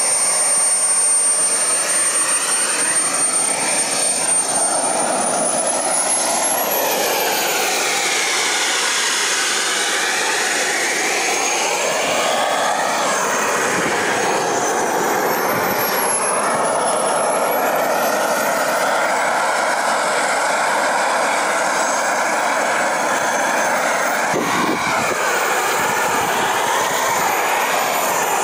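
Model jet's small kerosene-burning turbine engine running with a steady rush and a thin, very high whine. The whine climbs in pitch about five to eight seconds in, then dips and climbs again around the middle.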